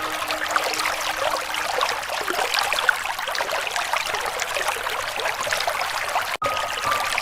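River water flowing and trickling in a steady rush of small splashes, cutting out for an instant about six seconds in.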